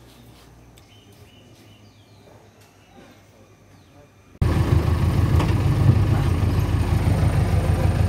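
Faint outdoor background, then about four seconds in a sudden jump to a loud, steady off-road jeep engine running, heard from inside the jeep's cabin.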